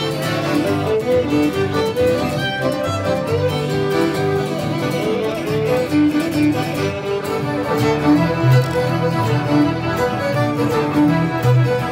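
Live acoustic folk band playing an instrumental tune at a quick pace: fiddle leading over piano accordion, strummed acoustic guitar and upright bass.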